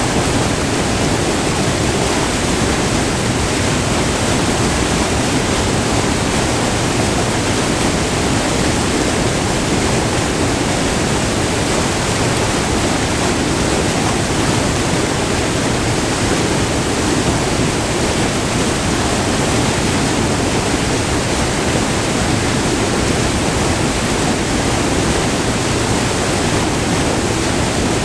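Waterfall: white water pouring steadily over a short, multi-tiered river cascade, recorded up close as an even, unbroken rush.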